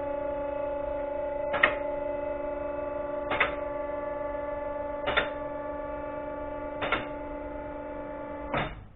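Iwasaki scissor car lift raising: its pump motor hums steadily while the lift clicks five times, evenly about 1.7 seconds apart, typical of the safety latch dropping over each notch. The motor stops just before the end.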